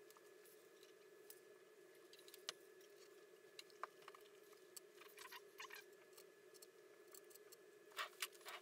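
Faint handling noises of an electric guitar body being turned over and handled on a cloth-covered bench: scattered small clicks and taps, with a louder pair near the end, over a faint steady hum.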